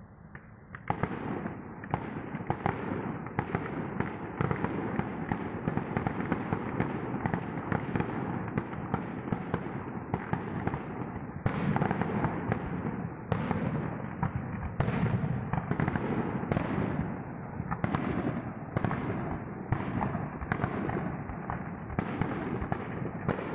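Aerial fireworks display: dense crackling and popping begins about a second in, with loud shell bursts about once a second, each trailing off.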